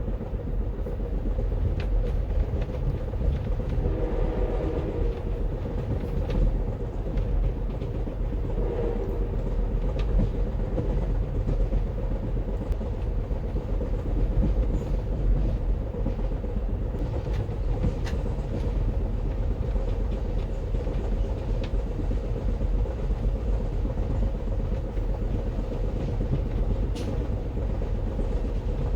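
Amtrak Empire Builder passenger train running on the rails: a steady low rumble with a few faint clicks, and a brief wavering higher tone about four seconds in.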